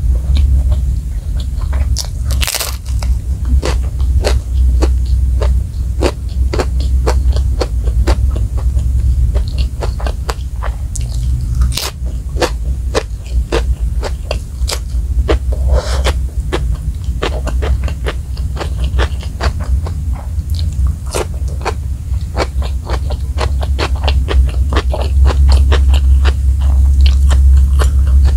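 Close-miked eating: dense crunching, biting and chewing of crispy food eaten by hand, such as fried rice, a krupuk cracker and a cucumber slice, with many sharp crunches. A steady low hum sits underneath.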